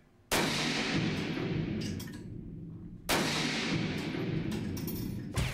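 Two gunshots from a firearm in a fixed test rest, test-firing bullets, about three seconds apart. Each shot rings on for a couple of seconds in the echoing indoor range.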